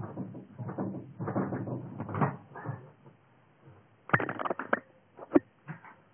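Mattress and bed frame thudding and creaking under someone jumping and flipping on a bed, in uneven bursts. About four seconds in come several sharp knocks and a single one shortly after, from the phone being grabbed and handled.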